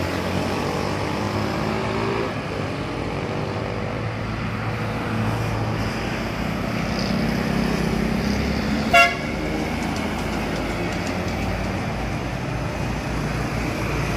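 Medium bus engine running past with steady road and traffic noise. About nine seconds in, one short, sharp horn toot rings out, the loudest sound here.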